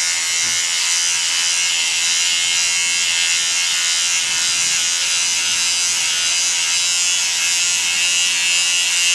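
Boteng Kemei electric shaver running steadily while pressed to the upper lip, cutting mustache hair.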